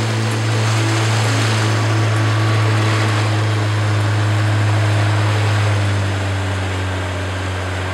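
Motorboat engine running steadily as a low hum, under an even rush of water and wind.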